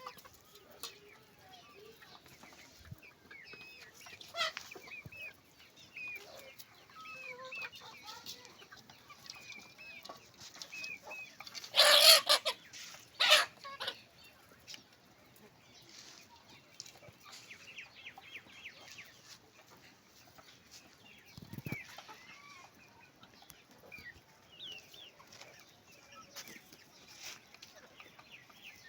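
A flock of Golden Misri chickens clucking and peeping, with many short calls throughout. Two loud, brief harsh sounds come close together about halfway through.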